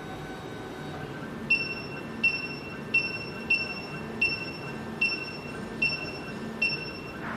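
SEC-E9 key cutting machine decoding an original key: a series of short, high-pitched tones, each starting with a click, repeating about every 0.7 s from about a second and a half in.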